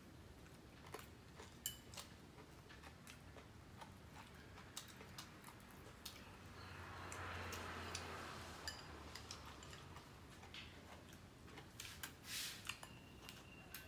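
Faint eating sounds: scattered light clicks of chopsticks against porcelain rice bowls, with quiet chewing and crunching. A soft swell of noise rises and falls about seven seconds in.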